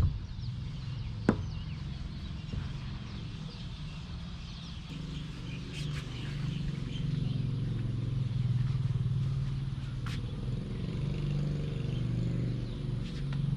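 A motor or engine running with a steady low hum that grows louder through the second half, with a single sharp knock about a second in.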